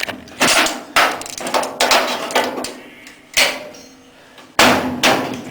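Hammer blows on the sheet-steel rocker panel of a 1963 Chevy C10, knocking it into place: about half a dozen sharp, irregularly spaced knocks, each with a short ringing tail.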